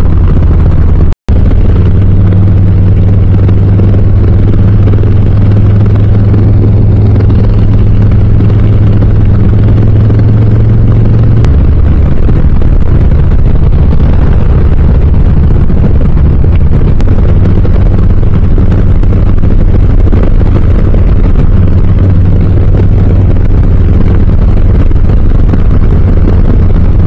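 Harley-Davidson Low Rider S's Milwaukee-Eight V-twin with Cobra slip-on exhausts, running steadily under way as the motorcycle is ridden. Its low note drops lower about a third of the way through, and the sound cuts out for an instant about a second in.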